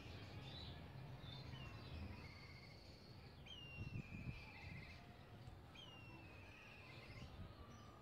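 Kites calling overhead: three thin whistles, each falling in pitch and ending in a quavering trill. A faint low hum lies underneath, and a brief low thump comes about halfway through.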